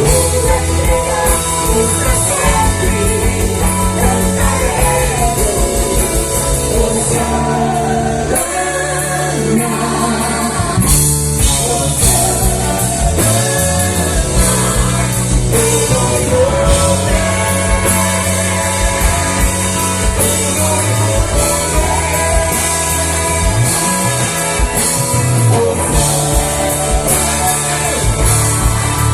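Live gospel rock band playing with a singer: electric guitar, bass and drum kit under a sung vocal line.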